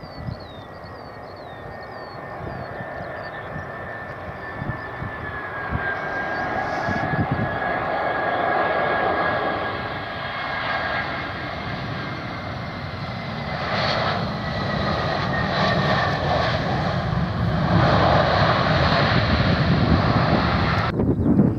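Airbus A320 jet airliner landing: the engines' steady whine on final approach slides slightly down in pitch, then the engine noise swells louder during the landing roll and cuts off abruptly near the end.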